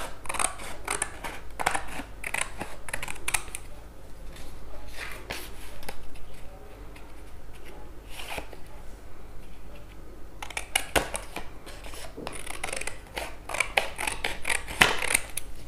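Scissors cutting through a sheet of thin grey card, a series of sharp snips coming in several runs with short pauses between them.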